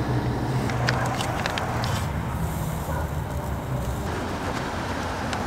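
Steady low rumble of vehicle traffic over the hiss of a propane camp stove burner, with a few light clicks as a food packet is handled.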